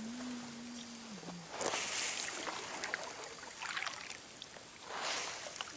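Kayak paddle strokes in water: two splashing swishes about three seconds apart, with small drips in between.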